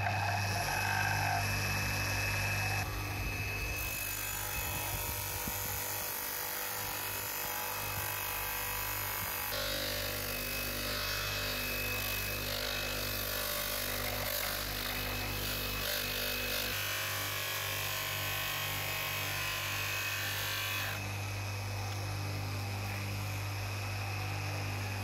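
Electric bench polishing motor spinning a felt polishing wheel with a steady low hum, while the steel pickaxe head is pressed against the wheel, giving a continuous rubbing hiss. The hiss changes tone abruptly a few times as the pressure or the spot on the head changes.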